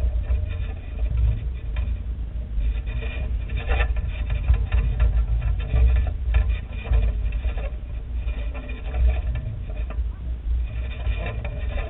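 Wind buffeting the microphone of a camera carried aloft, a fluctuating low rumble with faint fluttering above it.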